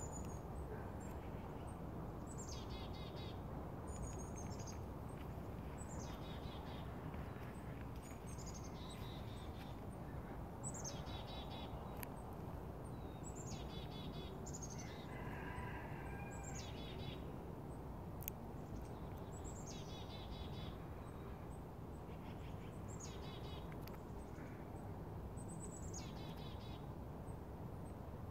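Chickadee giving its chick-a-dee-dee call over and over, about once every two seconds: a high falling note followed by a quick string of buzzy dee notes, over steady low background noise.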